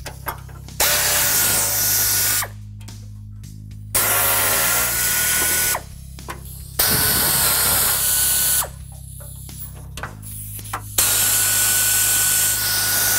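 Pneumatic air ratchet running in four bursts of about two seconds each, a hissing whir with a steady whine, as it spins out the bolts holding a radiator core support.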